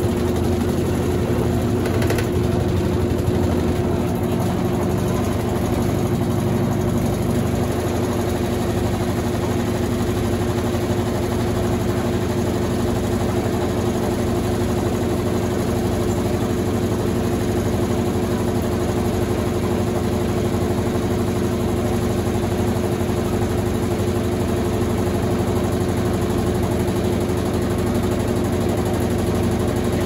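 Consul CWS12 12 kg washing machine running with a load of jeans: a steady motor hum with one constant mid-pitched tone over a lower drone.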